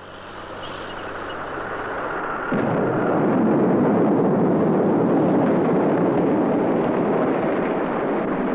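Dynamite blast breaking rock: a sudden loud boom about two and a half seconds in, after a building rush of noise, then a long dense rumble that slowly dies down.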